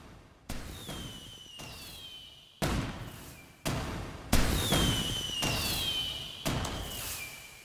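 Fireworks: a run of sharp bangs about one a second, each dying away, with falling whistles over them, the loudest bang about four seconds in.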